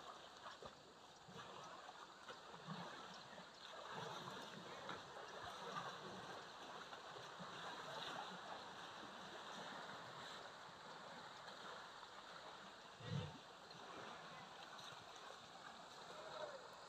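Faint outdoor background of distant voices and running river water, with one brief low thump about three-quarters of the way through.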